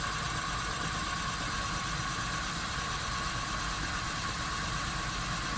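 Volkswagen Polo Sedan's front left wheel spinning with the engine running, a steady even running sound with no bearing hum: this wheel's hub bearing is sound.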